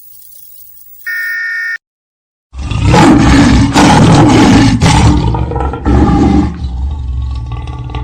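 Lion roaring loudly, starting about two and a half seconds in, in several strong surges that then ease into a lower, rough growl. A short steady electronic beep sounds about a second in, before the roar.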